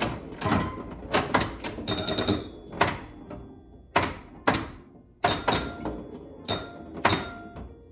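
Bally Strikes and Spares pinball machine in play: about a dozen irregular sharp clacks from the flippers, bumpers and ball striking targets, many followed by short electronic ringing tones.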